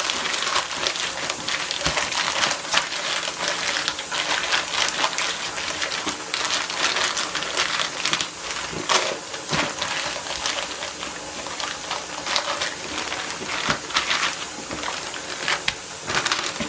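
Continuous scratching and rustling with many small clicks, the sound of plastic freezer bags of chicken being handled on a kitchen bench.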